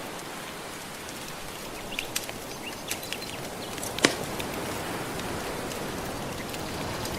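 Steady wash of gentle ocean waves with a wood fire crackling over it: scattered sharp pops, the loudest one about four seconds in.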